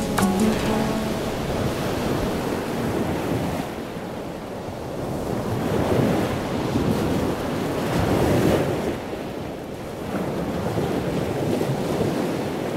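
Sea waves washing in slow swells, with wind blowing over them, rising and falling every few seconds.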